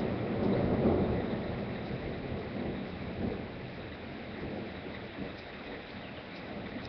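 Steady rain falling, with a low rumble of thunder that is loudest about a second in and then fades.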